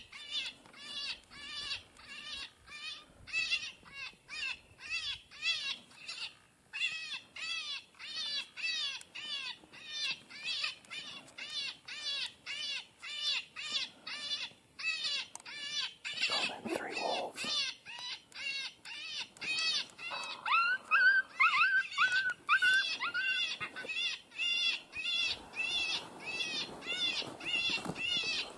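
Lucky Duck Revolt electronic predator call playing a looped distress sound: wavering high-pitched squeals repeated about three times a second. A second, lower series of cries joins in about two-thirds of the way through.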